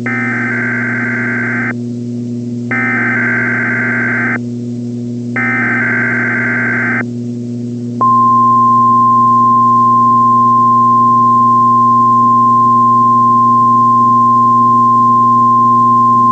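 Emergency alert SAME header: three bursts of warbling data tones, each under two seconds with about a second between them. Then, about eight seconds in, the NOAA Weather Radio 1050 Hz alert tone begins, one steady high tone that signals an alert broadcast is about to start. All of it sits over a steady radio hum.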